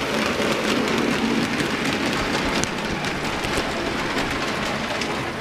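Model trains running on the layout: a steady rolling rattle of small wheels on the rails, with fine clicks over the rail joints.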